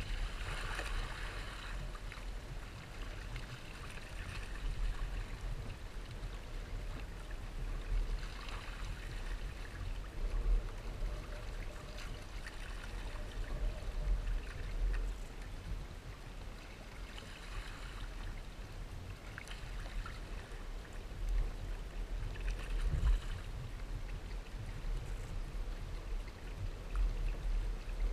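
Water rushing and splashing along the hull of a Hobie Tandem Island trimaran under sail, swelling in surges every few seconds, over a steady low wind rumble on the microphone.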